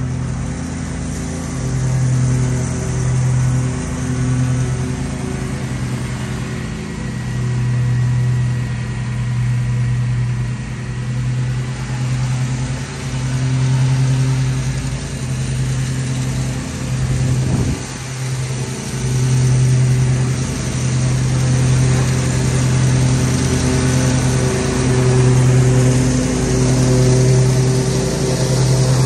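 Ferris walk-behind commercial mower engine running steadily under mowing load. It swells and fades in loudness every second or two, with a brief dip and recovery in pitch about two-thirds of the way through.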